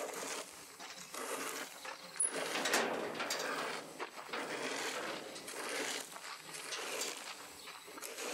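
Large metal yard gate rattling and scraping as it is worked open, in uneven patches.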